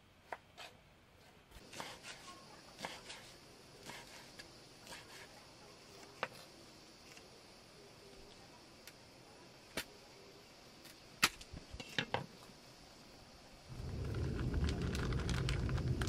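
Scattered light taps and clicks of vegetables and utensils being handled on wooden plates and a cutting board. Near the end a loud, steady low rumbling noise sets in and then cuts off abruptly.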